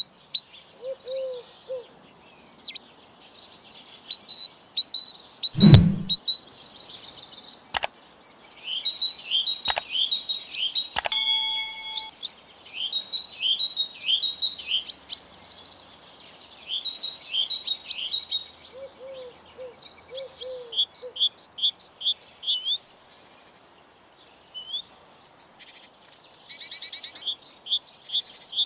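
Several songbirds singing, a dense chorus of quick high chirps and trills, with a few short low calls mixed in. A sharp knock about six seconds in is the loudest sound, and there are a few fainter clicks and a brief ring about eleven seconds in.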